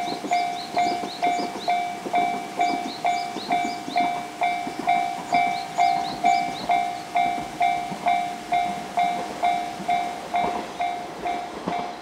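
Japanese railway level-crossing warning bell ringing steadily, one ding about every half second, each strike decaying quickly: the crossing alarm sounding because a train is approaching.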